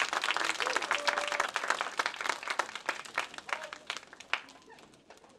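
Theater audience applauding, the claps thinning and dying away near the end.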